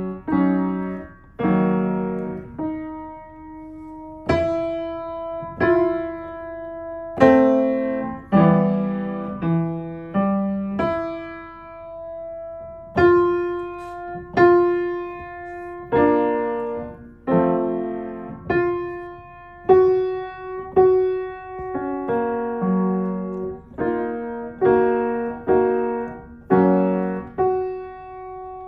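Piano played by a toddler experimenting at the keys: slow, separate strikes of notes and small groups of keys, roughly one a second, each left to ring and fade before the next.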